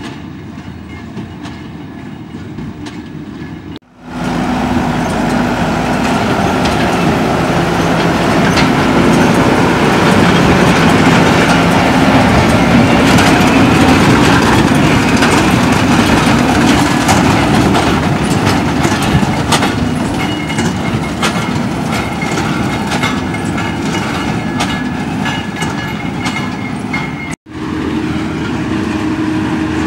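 Claas Quadrant 2200 large square baler working behind a Fendt 818 tractor: the tractor engine running under a dense, loud clatter from the baler's mechanism. It is quieter at first and much louder from about four seconds in.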